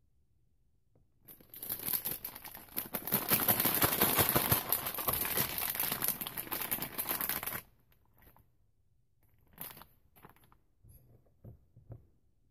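Plastic piping bag crinkling and rustling as it is handled and filled with whipped candle wax. It is a dense crinkle of about six seconds that stops abruptly, followed by a few short rustles.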